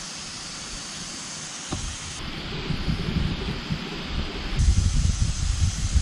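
Steady hiss of a breeze, with wind buffeting the microphone as a low rumble that builds from about two seconds in, and a light click just before the two-second mark.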